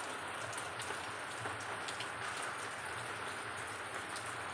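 Heavy rain falling steadily, an even hiss dotted with scattered sharp ticks of drops landing close by.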